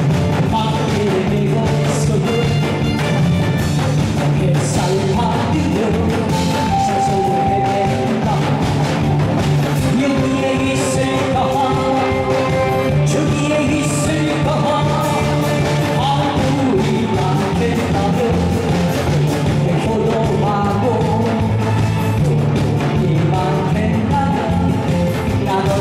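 A male singer performing a song live over loud backing music.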